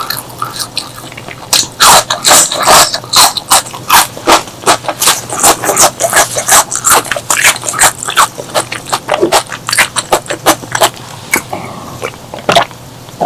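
Close-miked eating: a person chewing with loud mouth clicks and smacks, several a second, thinning out near the end.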